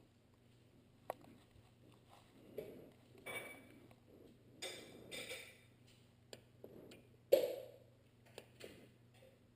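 Scattered faint clicks and short rustling knocks, the loudest a knock about seven seconds in.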